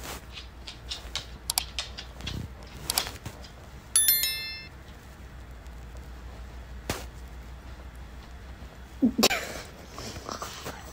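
Sound effects from a like-and-subscribe button animation: a few sharp mouse clicks, then a bright notification-bell chime about four seconds in. A short voice-like sound follows near the end, over a faint low hum.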